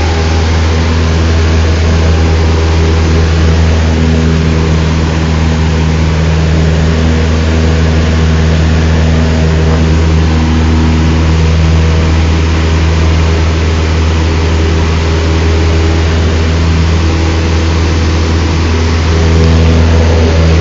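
Cessna 172's piston engine and propeller droning steadily at an even power setting.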